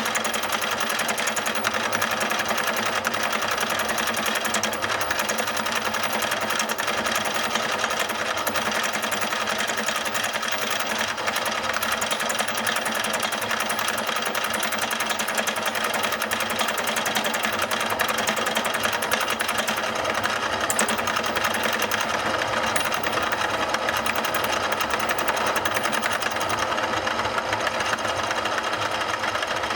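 Milling machine running, its cutter milling a flat face on a Ural motorcycle engine's front cover: a steady, fast, even mechanical run at a constant level.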